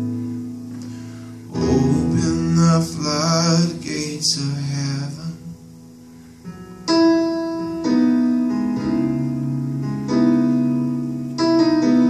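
A man singing a held, wavering vocal line over piano chords played on an Alesis digital keyboard. The singing stops about five seconds in, and from about seven seconds the keyboard plays alone, with slow, sustained chords.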